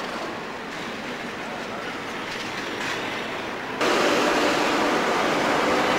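A Class 37 diesel locomotive running slowly in towards the platform under the station roof. About four seconds in, a sudden cut brings in a louder steady noise from a Class 47 diesel locomotive standing at the platform with its engine running.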